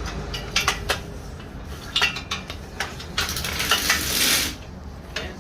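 Metal and hard plastic parts clinking and knocking as a large e-bike battery is worked into its mount on the frame, with a loud scraping rasp about three seconds in as it slides against the casing.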